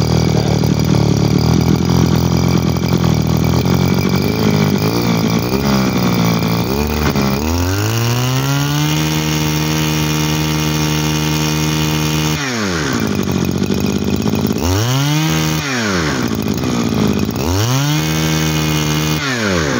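Mitsubishi TL20 two-stroke brush cutter engine, Ryobi-badged, idling steadily, then revved up and held at high speed for about four seconds, followed by three shorter blips of the throttle. It runs smoothly, a sign of a healthy engine in the seller's words.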